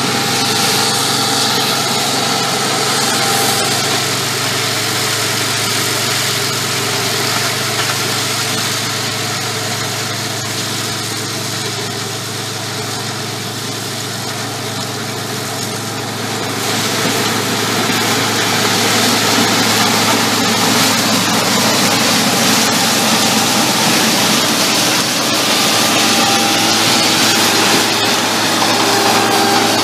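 Combine harvester running in the corn harvest: a steady loud engine drone under a dense mechanical hiss and whir, growing louder a little past halfway.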